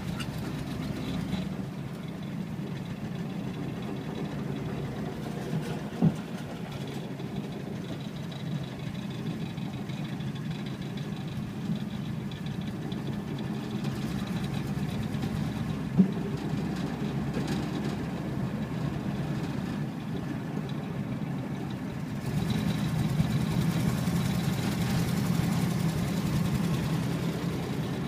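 A 1959 Ford Thunderbird's V8 running steadily as the car drives, heard from inside the cabin, sounding smooth. Two brief clicks come at about 6 and 16 seconds in, and the sound grows louder about three-quarters of the way through.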